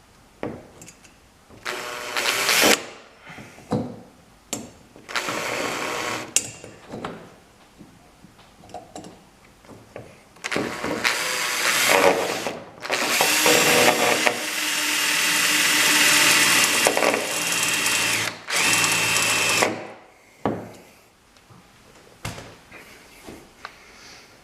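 Cordless power drill boring pilot holes with a small bit, run in several separate bursts, the longest lasting about five seconds with a steady motor whine.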